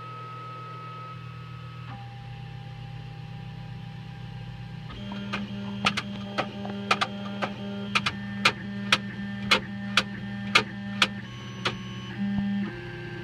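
da Vinci 3D printer's stepper motors running with steady whining tones that change pitch as the print head moves. From about five seconds in, a run of sharp clicks comes about two a second, and near the end there is a short louder buzz. This is the printer working after its x-axis optical sensor wires were resoldered to cure a twitching fault.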